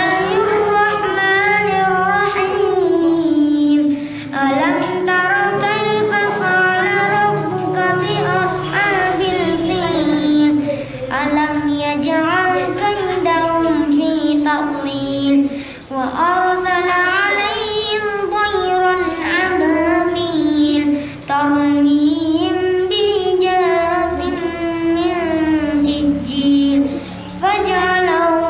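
A boy reciting the Qur'an in melodic tilawah style into a handheld microphone: long phrases of held, ornamented notes that rise and fall, with a short breath pause about every five seconds.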